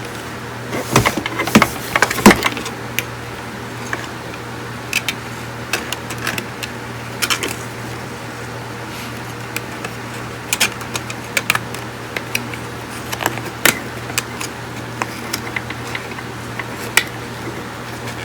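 Irregular clicks and clinks of small metal tools and parts being handled on a workbench, a dense cluster about a second in and then scattered ones, over a steady low hum.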